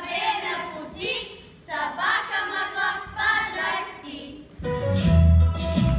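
A group of children singing together in short phrases with pauses between them. About four and a half seconds in, music with a heavy bass comes in suddenly and loudly.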